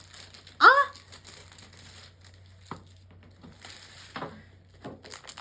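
Blind-box packaging being opened by hand, crinkling and tearing in scattered short bursts. About half a second in there is a short, loud pitched squeak that rises and falls.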